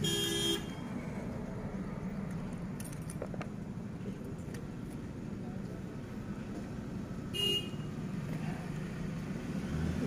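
Steady hum of street traffic with two short car-horn toots, one right at the start and a shorter one about seven and a half seconds in.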